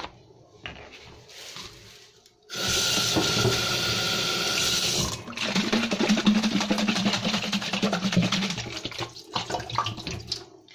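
A kitchen tap is turned on about two and a half seconds in and runs steadily into a stainless steel sink. From about five seconds the water pours into a plastic Coca-Cola bottle held under it and splashes around inside as the bottle is rinsed out, then dies away near the end.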